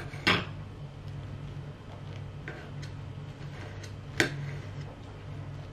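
Table knife and fork cutting through French toast on a ceramic plate: soft scraping, with two sharp clicks of the cutlery against the plate, one just after the start and one about four seconds in. A steady low hum runs underneath.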